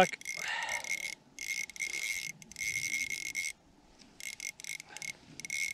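Small ice-fishing reel being cranked in several short bursts, each a steady high whir, as a crappie is reeled up through the ice hole; there is a short pause a little past the middle.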